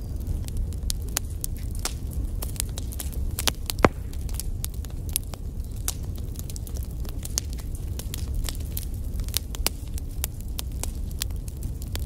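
Wood fire burning in a fireplace: logs crackling with frequent sharp pops over a low, steady rumble of flame, with one louder pop about four seconds in.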